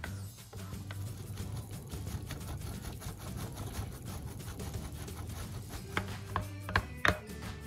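Metal mesh sieve shaken over a glass bowl to sift cocoa powder: a fast, steady rattle, followed near the end by a few sharp taps.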